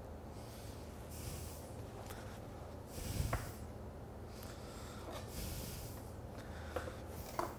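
Quiet sounds of butcher's twine being pulled and knotted around a rolled lamb shoulder: soft rustles, with a light knock about three seconds in.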